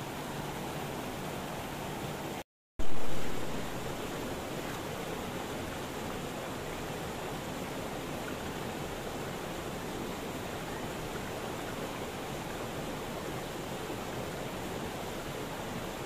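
Steady rush of a mountain stream running over rocks. About two and a half seconds in it cuts out briefly to silence and comes back with a sudden loud surge that settles within a second.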